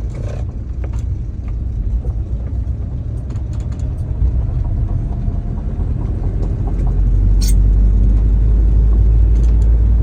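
Citroën DS driving in tight circles: a steady low rumble of engine and road that grows louder about two-thirds of the way through, with a brief sharp click near the end.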